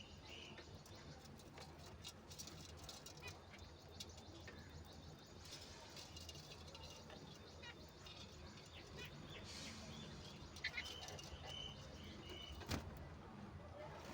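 Budgerigars chirping softly a few times, with scattered sharp clicks, the loudest a little before the end, over a faint steady low hum.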